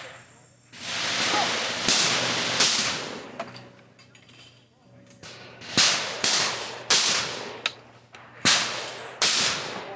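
A shotgun firing a run of sharp shots, each ringing off briefly, the shots falling in small groups a second or less apart.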